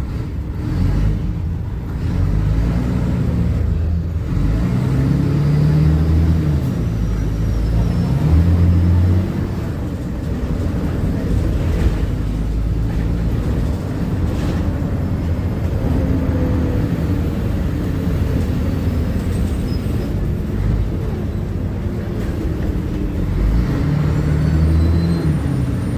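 Diesel engine of a Mercedes-Benz O500UA superarticulated BRT bus running, its pitch rising and falling several times as it accelerates and eases off.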